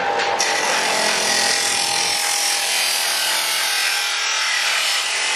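A power tool working metal: a loud, steady, hissing noise that turns brighter and harsher about half a second in.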